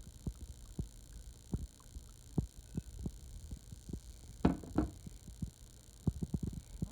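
Soft, irregular knocks and taps of things being handled, with a louder, longer double noise about four and a half seconds in.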